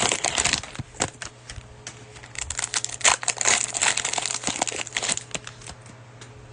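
Plastic cellophane wrapper of a trading-card cello pack crinkling as it is handled and opened, with a few sharp clicks, in two spells of crinkling that stop about five and a half seconds in.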